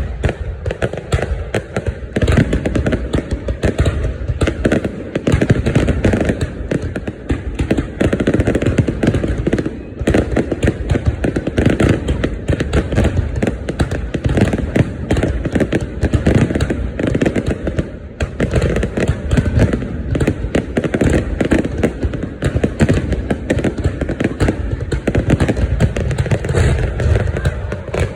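Fireworks going off in a dense, continuous barrage: rapid overlapping bangs and crackles with no pause.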